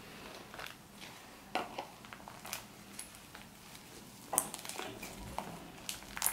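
Slime being squished and stretched by hand, making irregular small crackles and pops, the loudest a little over four seconds in and again near the end.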